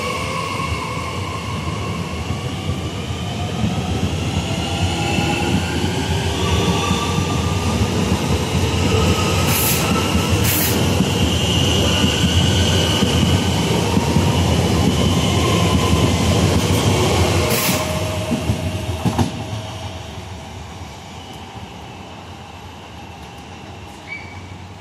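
Z 50000 Francilien electric train pulling out: a steady rumble of wheels on rail under a whine from the electric traction motors that slides in pitch, with a few sharp clicks from the running gear. It is loudest in the middle and fades away after about eighteen seconds as the train leaves.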